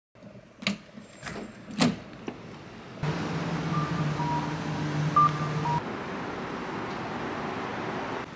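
Street traffic noise with a steady low engine hum and a few short high beeps, after three sharp knocks in the first two seconds.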